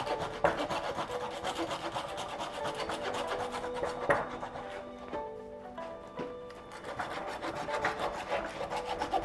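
Small hand pruning saw cutting through a live Japanese white pine branch, with rapid, continuous back-and-forth rasping strokes. Background music plays underneath.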